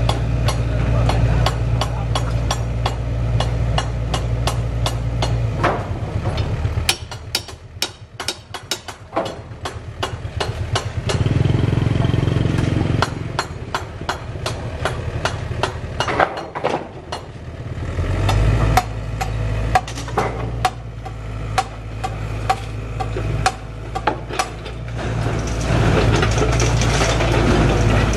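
SANY compact excavator's diesel engine running with a steady low hum that drops away twice and comes back, under many sharp knocks and clatters of demolition debris being worked.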